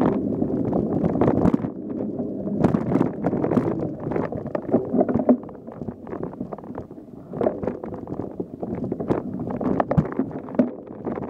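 Mountain bike riding over a bumpy trail: wind buffets the camera's microphone while the bike knocks and rattles over bumps and roots, easing off briefly about halfway through.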